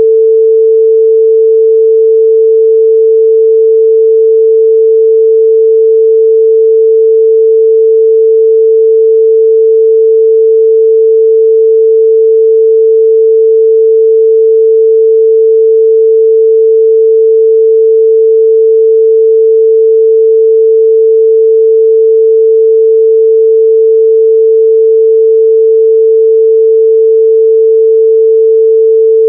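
A steady, loud 445 Hz sine-wave test tone, one pure pitch held without change.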